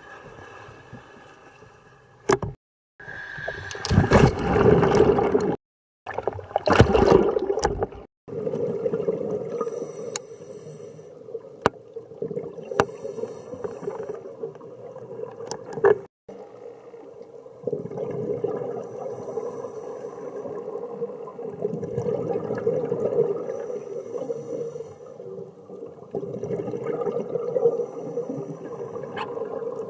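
Underwater sound of a scuba dive: gurgling bursts of exhaled regulator bubbles over a steady water hiss and hum, cut off abruptly several times.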